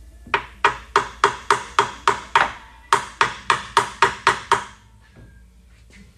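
Hand tool striking metal in a UTV engine bay: two runs of sharp taps, about four a second, each ringing briefly, with a short break between them.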